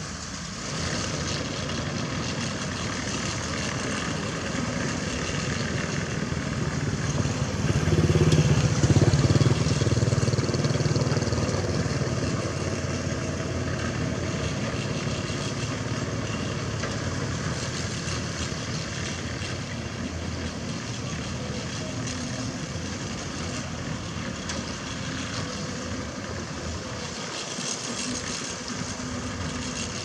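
Steady diesel engine noise from a Kobelco SK75 mini excavator and other site machinery, swelling louder for a few seconds about eight seconds in.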